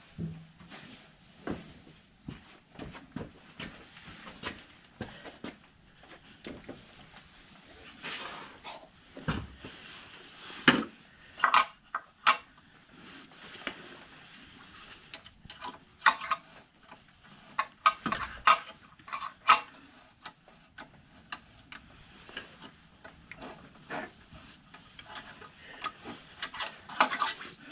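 Irregular metallic clinks, knocks and scrapes of a screwdriver and a motorcycle front axle as the axle is worked out of the wheel hub.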